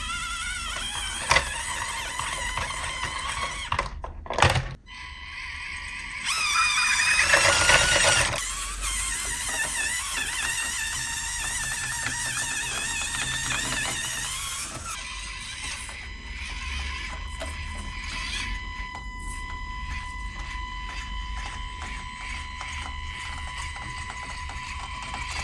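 Background music mixed with the whine of the small electric motors and geared drivetrains of 1/24-scale RC crawlers, the pitch wavering as they climb.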